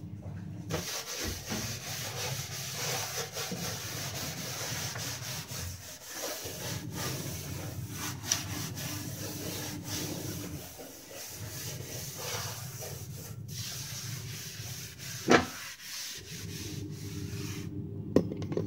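Hand scrubber scrubbing back and forth over a soapy kitchen countertop, a continuous scouring rub, with a sharp knock about fifteen seconds in and another near the end.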